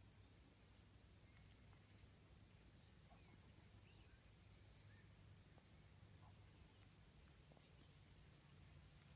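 Faint, steady high-pitched drone of insects, with a few faint short chirps scattered through it.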